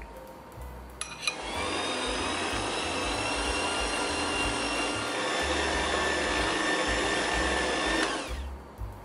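Kenwood stand mixer motor switched on with a click about a second in, running steadily on low speed with a whine while the beater mixes eggs into cream cheese batter. Near the end it is switched off and winds down, the whine sliding lower.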